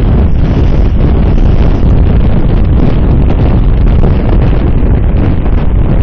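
Loud, steady wind buffeting on a bike-mounted Cycliq camera's microphone as the bike rides at about 28 mph on a wet road.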